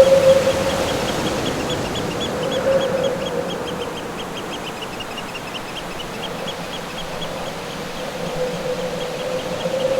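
Wind howling in a single moaning tone that swells and fades, over a steady rush of surf, with a fast run of high chirps, about five a second, through the middle.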